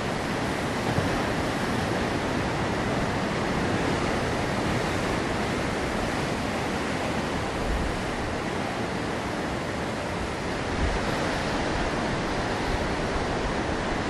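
Rough sea surf breaking over a rocky shore: a continuous rush of crashing, seething waves.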